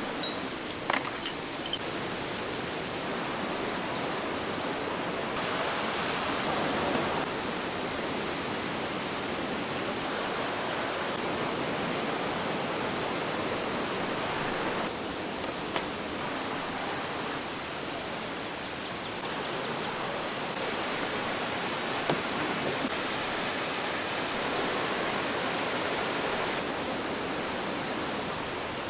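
Mountain stream running high and fast, swollen by monsoon rain: a steady, even rush of water, with a few faint clicks about a second in.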